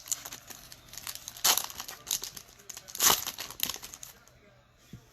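Trading card pack wrappers crinkling and tearing as packs are opened by hand, in irregular bursts with two louder ones, then dying away near the end.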